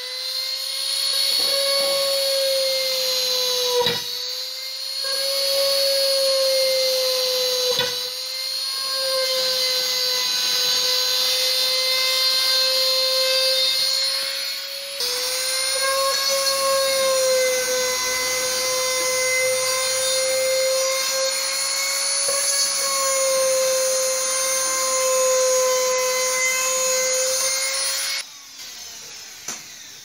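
Electric rotary tool with a small drill bit, its motor whining steadily at high pitch as it bores holes through the plastic back cover of an old TV, dipping briefly in pitch a few times as the bit bites. The motor stops a couple of seconds before the end.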